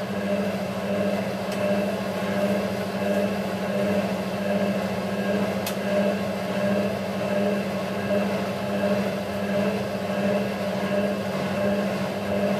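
Hotpoint 9530 washing machine on its distribution drain: the drum turning steadily with the laundry spread against it while the drain pump runs. The steady hum swells and fades about once a second with each turn of the drum.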